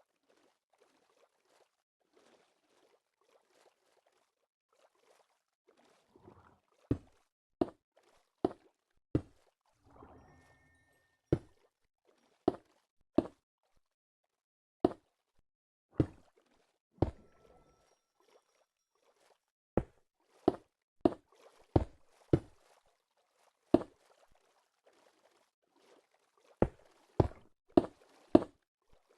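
A series of sharp knocks, about twenty, unevenly spaced, starting about seven seconds in and coming closer together near the end, with faint rustling between them.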